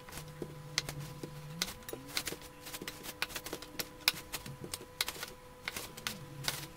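Kitchen knife cutting a raw sausage into short pieces on a plastic cutting board: a string of irregular light clicks and taps as the blade meets the board. A faint steady hum runs underneath.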